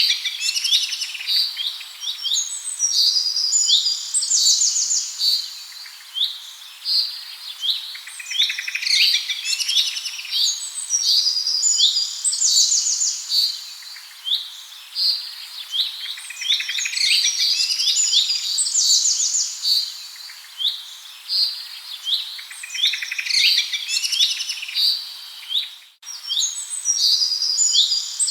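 Small songbirds chirping and trilling in high-pitched phrases, the song coming in dense bursts about every seven seconds. A split-second gap in the sound comes near the end.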